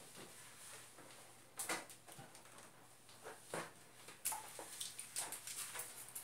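Faint handling noises: scattered light knocks, taps and rustling as someone moves about and picks things up, with sharper taps about two seconds and three and a half seconds in.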